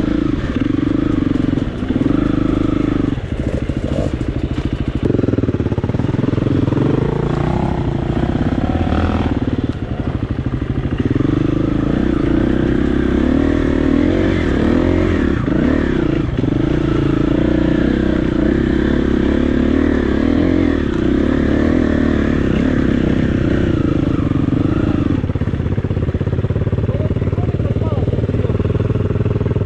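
KTM 350 EXC-F's single-cylinder four-stroke engine running under a changing throttle while riding. The engine note holds steady in stretches, shifts several times, and falls back near the end.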